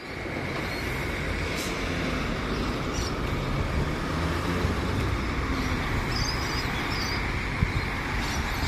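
Diesel engine of a flatbed crane truck running steadily, a low even rumble.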